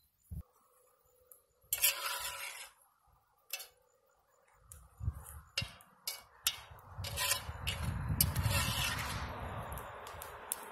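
A metal ladle stirring soup in a cast iron pot, with scattered clinks and scrapes of the ladle against the iron.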